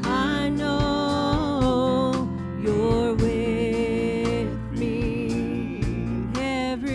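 Live church worship music: a band with a drum beat under long, held melody notes.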